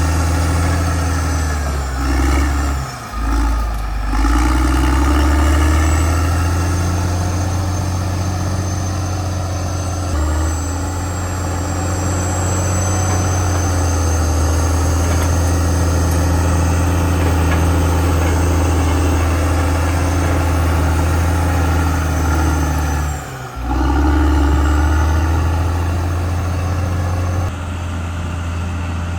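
CAT D6R XL bulldozer's diesel engine running steadily under load with a deep hum, and a thin high whine above it. The engine note dips briefly twice, a few seconds in and again near the end.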